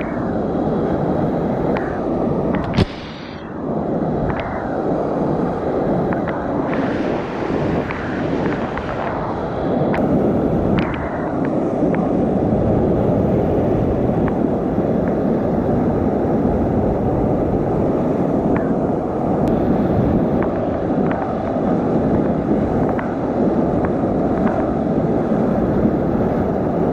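Whitewater rushing loudly through a cascade under a logjam, a steady deep wash of noise. There is a sharp knock about three seconds in and a few lighter knocks a little later.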